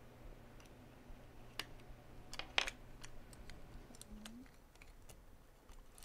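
Light clicks and taps of hands handling a metal RGB RAM heat sink as it is taken apart, with a louder click about two and a half seconds in.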